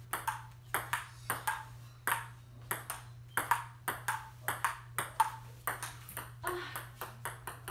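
Table tennis rally: the ball clicking off the paddles and the table about three times a second, in a steady back-and-forth.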